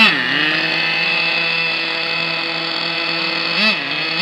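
Small nitro RC car engine idling steadily, with a quick throttle blip at the start and two more near the end.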